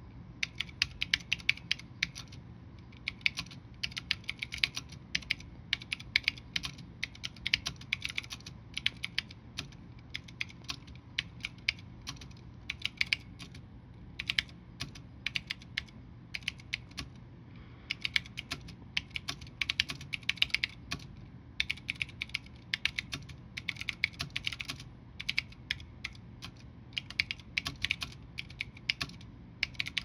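Fast typing on a mechanical keyboard with clicky Cherry MX Blue switches under round typewriter-style keycaps on an open-frame steel plate. Runs of rapid sharp clicks are broken by short pauses every few seconds.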